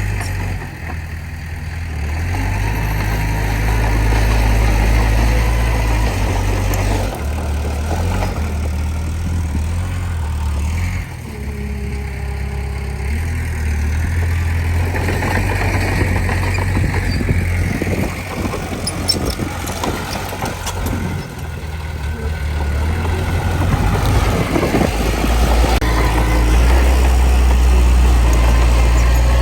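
Diesel engine of a small bulldozer running under varying load, its speed and loudness rising and falling every few seconds. There is a run of knocks and rattles partway through.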